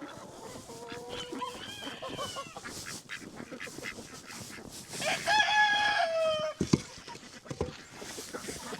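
Farmyard poultry calling, with a rooster crowing loudly about five seconds in for just over a second, its call dropping in pitch at the end. Quieter calls come from the flock about a second in.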